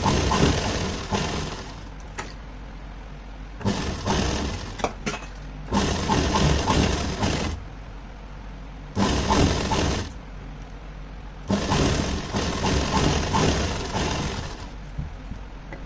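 Electric sewing machine stitching lace onto fabric in five runs of one to three seconds each, stopping briefly between them.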